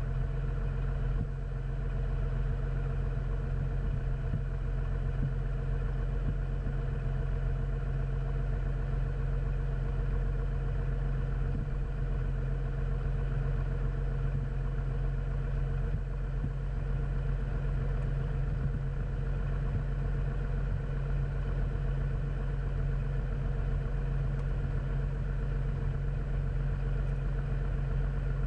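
Cessna 400's turbocharged six-cylinder Continental engine and propeller running steadily at low taxi power.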